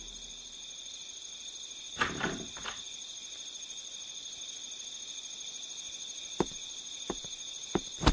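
Crickets chirring steadily in a high trill, as a night-time ambience. There is a brief louder sound about two seconds in and a few faint clicks near the end.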